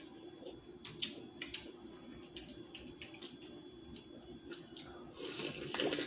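Eating sounds from a seafood boil: fingers picking at shellfish and dipping into a bowl of sauce, then biting and chewing. These come as scattered faint clicks and ticks that grow a little louder near the end.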